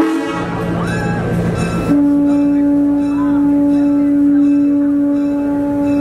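Diesel switcher locomotive's air horn, heard close up, blowing one long steady blast that begins about two seconds in, after a short pause. The horn is sounding for a road crossing.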